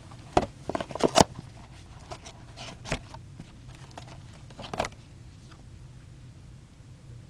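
Trading-card packaging being handled, with sharp crinkles and taps: a quick cluster about a second in, then single ones near three and five seconds, over a low steady hum.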